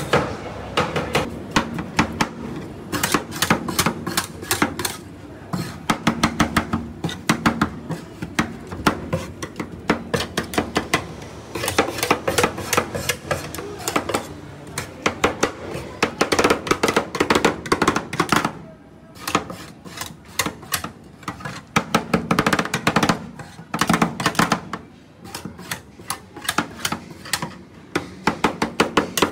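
Two metal spatulas chopping and tapping fast on a frosted steel cold plate in bursts of rapid clicks with short pauses, as dry fruits and toppings are chopped into the ice cream on the plate.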